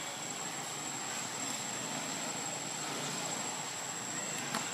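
Steady outdoor background noise with a thin, high, steady tone running through it, and one faint click near the end.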